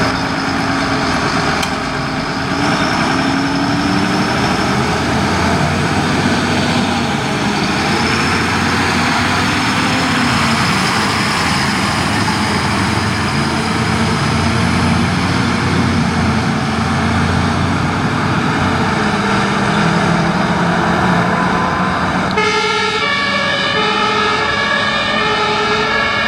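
Fire engine on an emergency run: heavy diesel engine and road noise, the engine note rising and falling. About 22 seconds in, a two-tone siren switches on abruptly, alternating high and low notes about once a second, the German emergency-vehicle Martinshorn.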